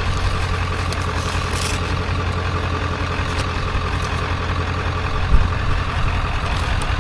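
Vehicle engine idling with a steady low rumble, and a single light knock about five seconds in.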